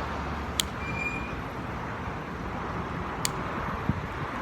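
Steady road traffic noise, with two sharp clicks and a brief high-pitched tone about a second in.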